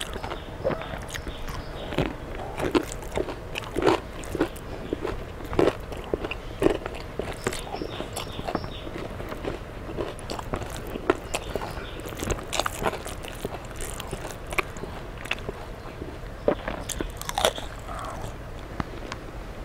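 Close-miked eating: irregular crunchy bites and chewing of crisp fried fish and pakoda, with mouthfuls of watery rice (panta bhat) eaten by hand.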